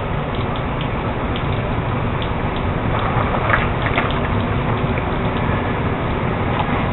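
Heavy rain falling steadily during a thunderstorm, with scattered small drips and splashes ticking through it.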